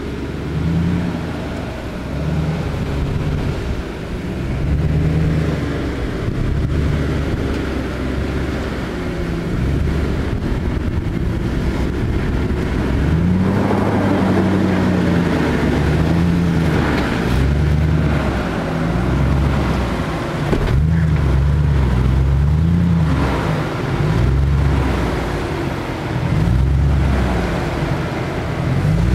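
Jeep Grand Cherokee WJ engine revving up and down again and again as the 4x4 crawls through a deep rut. From about halfway through, tyres scrabble and dirt crunches along with the engine.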